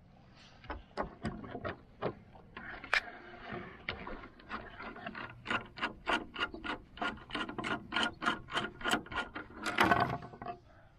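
Tool and hardware clicks while the strengthener bracket is worked free of a BMW R 1200 GS Adventure's plastic windscreen: sharp clicks that settle into a run of about three or four a second. Near the end the screen scrapes against the wooden surface as it is moved.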